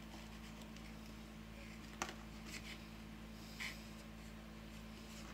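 A fork clicking and scraping on a plate while eating, faint over a low steady hum: one sharp click about two seconds in, then a couple of softer scrapes a little later.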